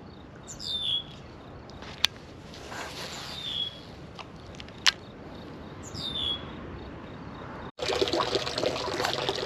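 A bird repeatedly gives a short call that falls in pitch, about every two and a half seconds, with two sharp clicks between calls. Near the end the sound cuts abruptly to louder trickling, pouring water.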